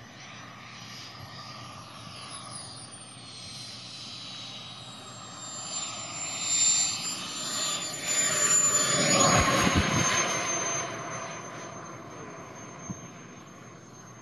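Radio-controlled model jet's turbine engine whining as the jet comes in low with its wheels down to land. The high whine falls slowly in pitch and swells loudest about two-thirds of the way through as the jet passes close, then fades.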